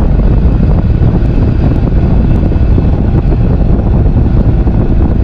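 Kioti RX7320 cab tractor's diesel engine running steadily under load while pulling a homemade chisel disc harrow through the soil, heard from inside the cab as a loud, even drone.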